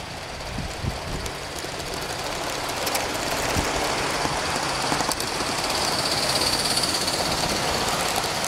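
Gauge 1 live-steam model train running along its metal track, the wagons' wheels clicking and rumbling, growing louder from about three seconds in as the train comes close past.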